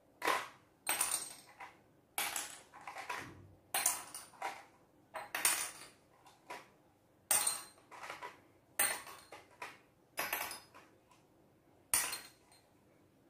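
Small counters dropped one at a time into empty hexagonal glass jars. Each lands with a sharp clink and a short ring, about ten in all, roughly one every second or so.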